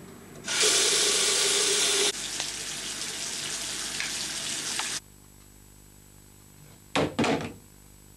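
Washbasin mixer tap opened, with water gushing into the sink as a loud rushing noise. About two seconds in it drops to a quieter steady rush, which stops abruptly about five seconds in. Near the end there are two short loud noises in quick succession.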